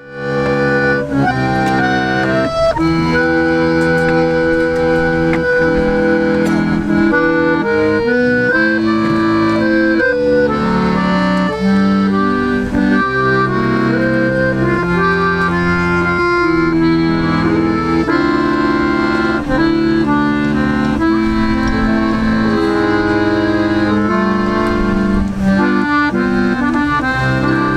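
Accordion playing a melody over sustained chords, with notes held and changing every second or so.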